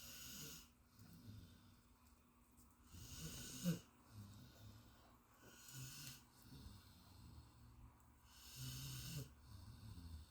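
Golden retriever snoring softly in deep sleep: faint, hissy breaths roughly every three seconds, one a little louder than the rest about four seconds in.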